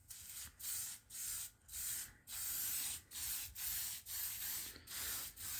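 Aerosol spray-paint can hissing in short bursts, about two a second, as paint is sprayed onto metal parts.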